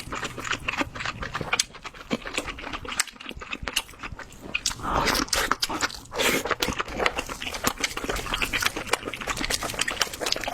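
Close-miked eating of lobster meat: wet chewing with many quick lip smacks and mouth clicks, and a couple of longer slurping stretches partway through.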